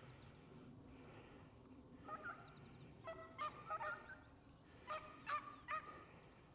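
Beagles baying faintly, short pitched yelps in ragged clusters starting about two seconds in, as the hounds give voice while running a rabbit's scent line.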